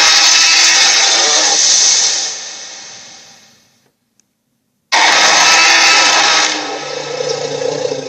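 A dragon toy's electronic roar sound effect, played twice through its small speaker: each roar is a loud, harsh burst that fades out over a second or two, the second with a deeper growl near its end.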